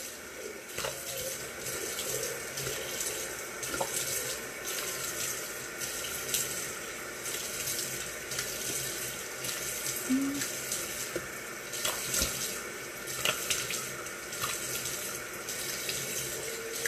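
Bathroom sink tap running while handfuls of water are splashed onto the face to rinse off an exfoliating scrub: a steady flow with irregular splashes.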